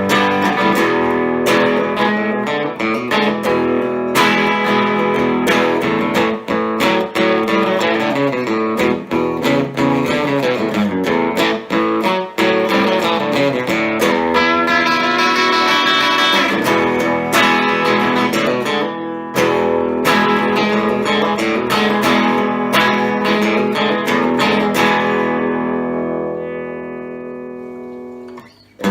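Epiphone Casino hollow-body electric guitar played through a Vox AC15C1X valve amp on its Top Boost channel: strummed chords, with a run of single notes about halfway through, then a last chord left ringing and fading out near the end.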